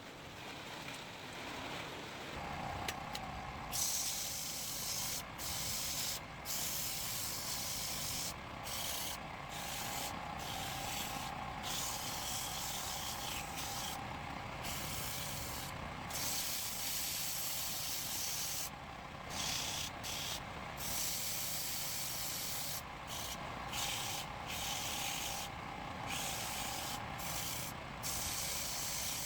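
A wood lathe running with a tool or sandpaper held against the spinning workpiece. It makes a steady rough hiss that stops for a moment many times as the tool or paper is lifted off, over a faint whine from the lathe.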